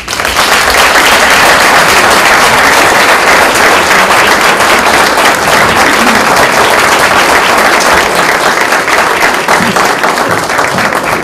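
An audience applauding: many people clapping together, starting abruptly and sustained, easing slightly near the end.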